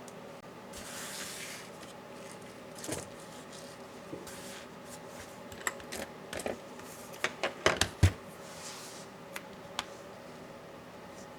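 Small clicks, taps and scraping from hands and tools working on a Dell Latitude 7410 laptop's parts, with a quick run of sharper clicks about eight seconds in.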